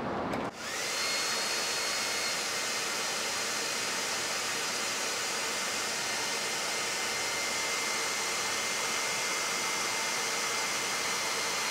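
Electric heat gun switched on about half a second in and then running steadily: a rush of blown air with a constant high fan whine. It is blowing hot air on an insulated crimp terminal to test whether the insulation is heat shrink.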